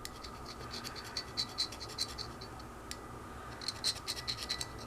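Quick, light scraping strokes of a cleaning tool working fouling off a Beretta 92FS pistol part, in two short runs with a pause between.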